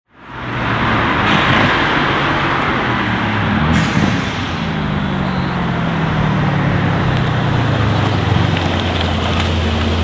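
Brabus-tuned Mercedes-AMG C63 S Estate's twin-turbo V8 running at low revs as the car drives, fading in at the start. Its note falls slowly in pitch over the second half as the car eases off.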